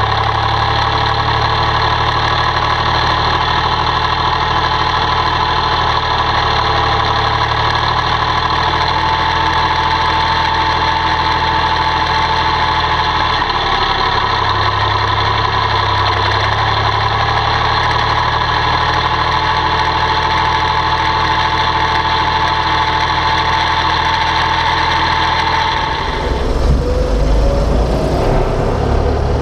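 1967 IHC 423 tractor's diesel engine running steadily while driving, with a whining tone that slowly rises and falls in pitch. About 26 seconds in, the sound changes abruptly to a deeper, rougher drone heard from inside the cab.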